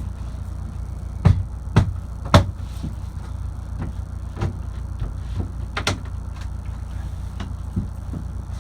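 A steady low rumble with a series of sharp knocks, the three loudest close together in the first two and a half seconds and a softer one about six seconds in.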